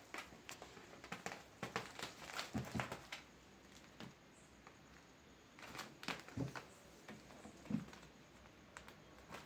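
Cats play-fighting: faint scattered rustling and scratching, with a few soft thumps.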